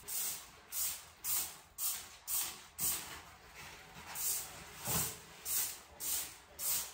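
Trigger spray bottle of bathroom cleaner squirting onto tile grout lines in a steady run of short sprays, about two a second.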